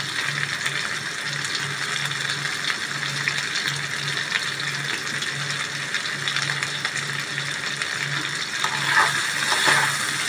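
Potato and taro pieces sizzling steadily as they fry in oil in a kadai, with a low hum that cuts in and out throughout. Near the end a metal spatula scrapes and stirs the pieces.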